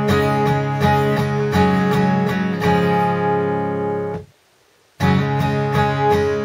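Guitar in an open tuning played slowly, single picked notes with hammer-ons over ringing open strings. The playing stops about four seconds in and starts again about a second later.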